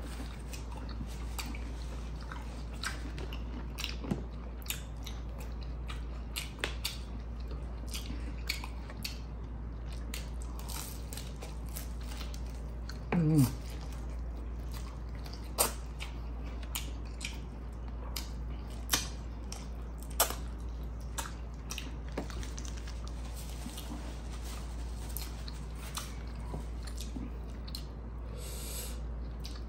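Close-up sounds of a person eating fried chicken: biting and chewing, with many short sharp mouth clicks. About thirteen seconds in comes one short vocal sound falling in pitch. A steady low hum runs underneath.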